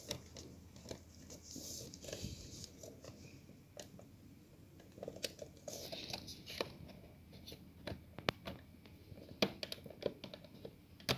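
Plastic parts of a Passat B5 centre air-vent grille being handled and fitted together: faint rustling and scattered small clicks of plastic louvers and tabs, the clicks more frequent in the second half.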